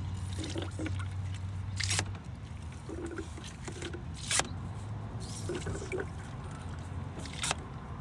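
Old automatic transmission fluid trickling through a hand fluid transfer pump's hose into a container, with three sharp clicks spread through it. A steady low hum in the background drops away about two seconds in.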